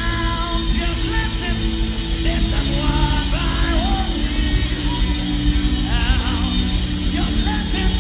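Live worship band playing, driven by a drum kit with cymbals, with melodic lines sliding in pitch over a steady, dense low end.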